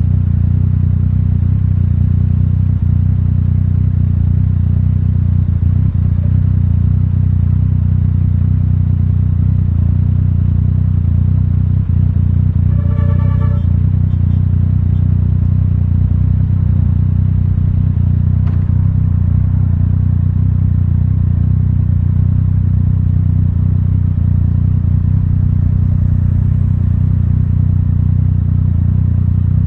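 Yamaha Tracer 900 GT's 847 cc three-cylinder engine idling steadily through an Akrapovic titanium full exhaust system with the dB killer removed. A short high-pitched beep sounds about halfway through.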